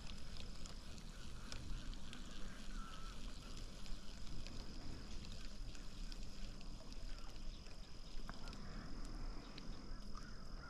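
Quiet lakeside outdoor ambience: a low wind rumble on the microphone, a faint steady high thin tone and a few scattered light ticks.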